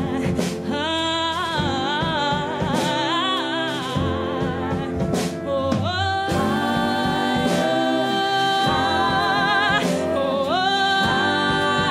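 A small jazz band playing live: piano, upright bass and horns, with several voices singing in harmony and long held chords in the middle.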